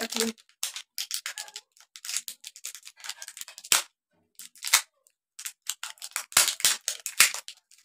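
Plastic bottles and packaging being handled: a string of short, sharp, scratchy clicks and rustles at irregular intervals.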